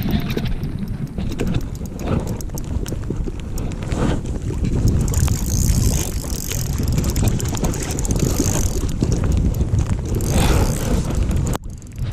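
Wind buffeting the microphone in a steady low rumble, with a higher hiss in the middle and a brief drop just before the end.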